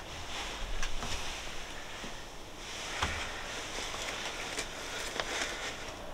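Steady wind noise, with a few faint clicks and ticks scattered through it.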